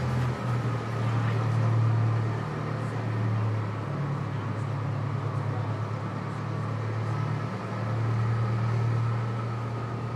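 Zoo train's engine running under load with a steady low drone that swells and eases every few seconds; the riders say it is struggling and burning oil. A faint, steady cicada chorus sits above it.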